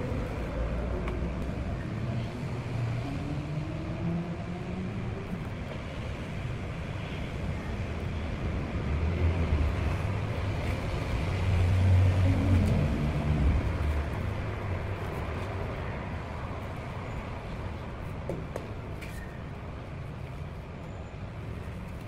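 Low rumble of road traffic, with an engine rising in pitch in the first few seconds and a heavier rumble swelling and fading about twelve seconds in.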